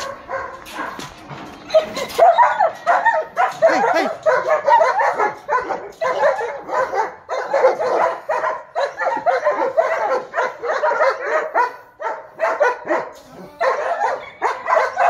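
Kennelled German shepherd dogs barking and yelping in a continuous, overlapping chorus, picking up about two seconds in.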